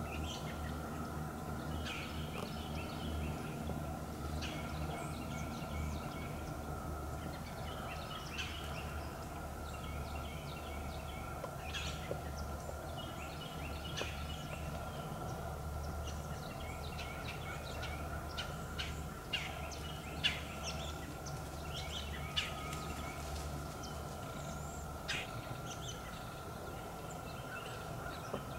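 Faint woodland ambience: scattered short bird calls and chirps over a steady low hum, with a few sharp ticks or snaps in the second half.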